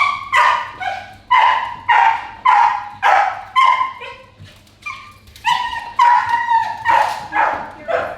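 A dog barking repeatedly in high-pitched yaps, about two a second, with a short lull around the middle.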